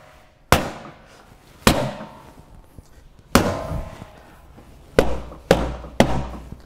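Rubber mallet striking a hollow aluminum column six times at uneven intervals, the last three in quick succession, each blow leaving a short metallic ring. The taps snap the final stave's male-female edge into place on the assembled column.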